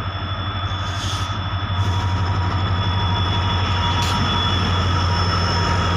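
Freight train passing on the next track: the locomotive's steady low drone with a thin, steady high whine over it, growing louder as the train comes alongside.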